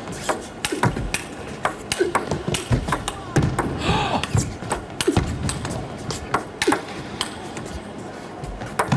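Table tennis ball struck back and forth in a long, fast rally: sharp clicks of the celluloid-type ball off rubber-faced paddles and bouncing on the table, several a second.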